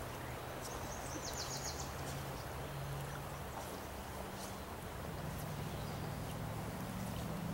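Steady wash of river water around a wader's legs, with a faint low hum under it. About a second in, a bird gives a short, rapid trill.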